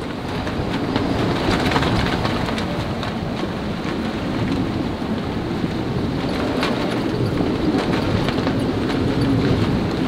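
Gale-force wind and breaking seas rushing along a sailing yacht's hull: a steady, loud rush of wind and white water that swells about a second in.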